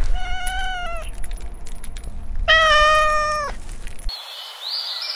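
A kitten meowing twice, each meow about a second long, the second one louder. Near the end birds start chirping.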